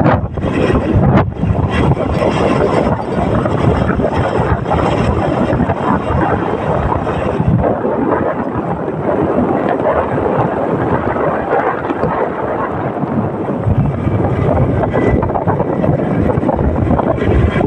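A motorcycle riding along at speed, its running noise mixed with heavy wind buffeting the microphone.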